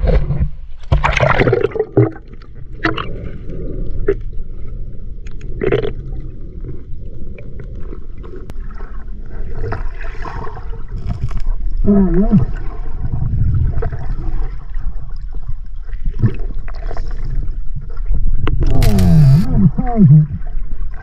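Muffled gurgling and sloshing of river water while a person swims in search of a trout, the camera in or at the water, with scattered small knocks. A louder burst of splashing comes near the end.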